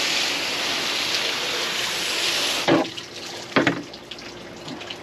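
Water spraying steadily from a pistol-grip garden-hose nozzle, shut off suddenly about two and a half seconds in, then two sharp knocks.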